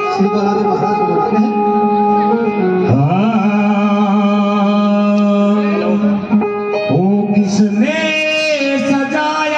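Hindi devotional song (bhajan) playing: a voice holding long notes, swooping up into them about three seconds in and again near the end, over instrumental accompaniment.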